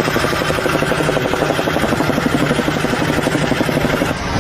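A machine running steadily with a fast, even pulsing. It cuts in abruptly.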